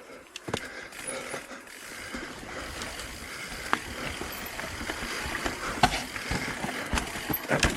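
Mountain bike riding over rocky trail: a rough rolling and rattling noise from tyres and drivetrain that grows louder, with sharp knocks as the wheels strike rocks.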